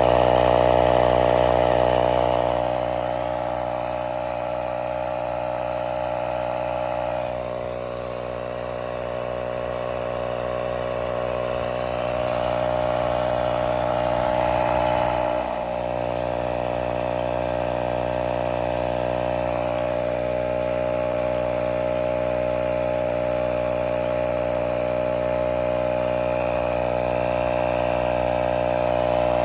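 Electric compressor of a tire sealant-and-inflator kit running steadily, pumping sealant and air into a flat car tire, a continuous buzzing hum whose loudness shifts slightly a few times.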